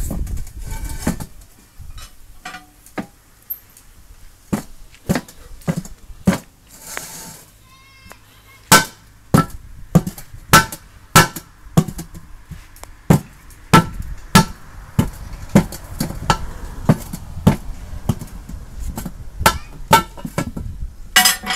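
Repeated sharp metallic knocks of a steel tyre iron being struck and levered against the tyre bead and alloy rim to force the tyre onto the wheel by hand. The knocks are scattered at first, then come at a steady pace of nearly two a second with short pauses.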